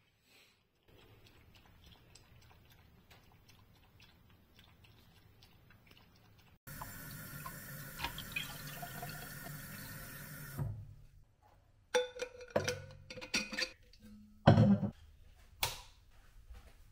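Water running steadily for about four seconds, then a series of sharp clinks and knocks, some ringing briefly, like kitchenware being handled.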